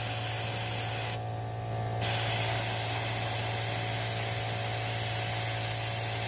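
Compressed air hissing as it is blown through a leaking aircraft brake swivel fitting held under water for a leak check. The hiss stops briefly about a second in and then resumes, over a steady low hum.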